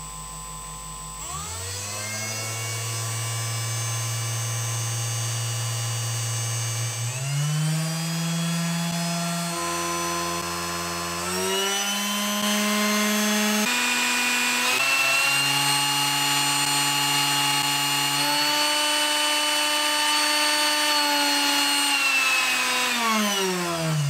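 Woodpecker 3018 CNC's upgraded DC spindle motor running on a pulse-width-modulation speed controller. It speeds up from low speed in several steps, its whirr rising in pitch at each step, then winds down near the end as the speed is turned back down.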